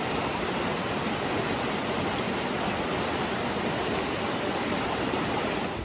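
Steady rush of running water, even and unbroken, cutting off suddenly at the end.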